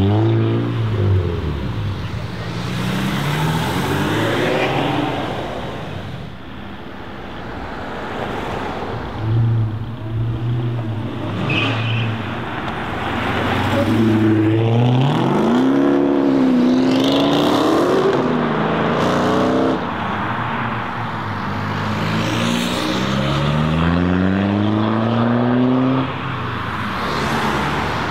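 Dodge Charger SRT Hellcat's supercharged V8 accelerating hard through a Vicrez aftermarket exhaust, its revs climbing in several rising pulls, with other cars passing in between.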